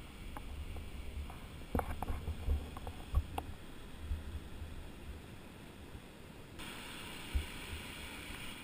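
Faint low rumble with scattered small clicks and knocks in the first few seconds: hands handling and pressing the buttons of an X-1 waterproof headphone unit on a kayaking helmet. A faint steady hiss picks up near the end.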